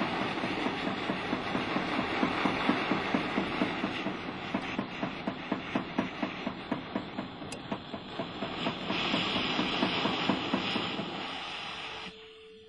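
Jeweller's gas torch flame heating a gold ring held in pliers: a steady rushing hiss with a rhythmic pulse, about two or three beats a second, that dies away near the end.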